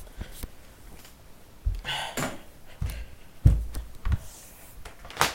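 Several dull thumps and knocks, the loudest about three and a half seconds in, with a sharp click near the end.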